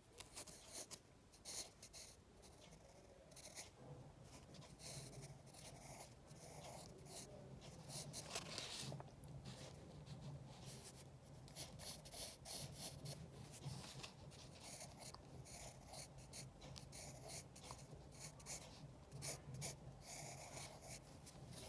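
Pencil drawing on paper: faint, irregular scratching strokes as lines are sketched.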